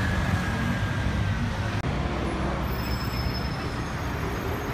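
City road traffic: cars, a van, a scooter and double-decker buses running and passing on the road, a steady low rumble.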